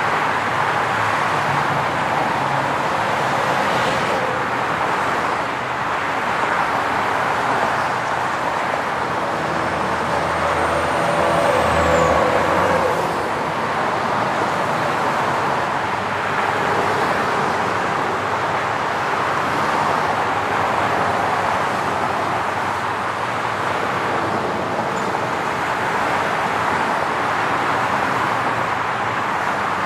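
Highway traffic: a steady wash of tyre and engine noise from passing vehicles, swelling and easing, with one louder vehicle passing about ten to thirteen seconds in.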